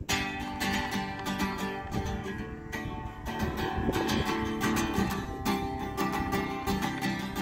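Acoustic guitar strummed in a steady rhythm, an instrumental break with no singing.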